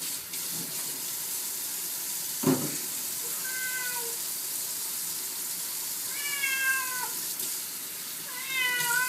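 A cat meowing in protest while being bathed: three drawn-out meows, the last starting near the end, over a steady hiss of running tap water. A short loud thump about two and a half seconds in.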